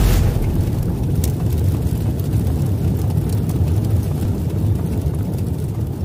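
Deep, steady rumbling sound effect for an animated logo intro, like the rumble of a jet, with faint crackles above it.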